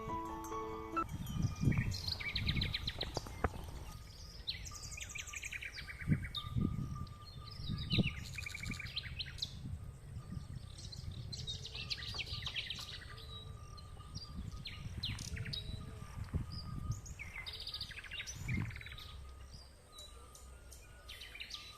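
Small birds chirping and singing outdoors, with many short calls and fast trills overlapping. Low dull thumps and rumbles sound now and then underneath.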